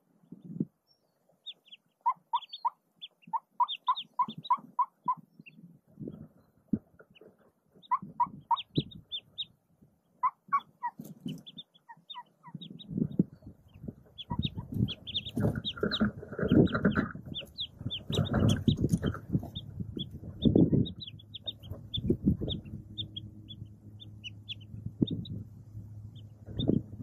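Mallard ducklings peeping and the hen's soft clucking, short calls in quick runs of several notes. About halfway through, rustling and scraping begins as the hen shifts about in the dry twigs and litter of the nest, and a faint steady low hum sits underneath.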